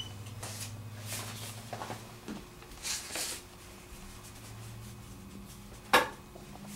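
Handling and movement noise from a handheld camera carried through a small indoor space, with a steady low hum, a few soft brushing sounds, and one sharp click about six seconds in.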